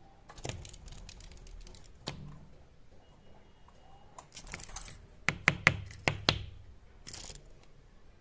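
Irregular clusters of sharp taps and clicks, loudest in a quick run of four or five hard taps about five to six seconds in.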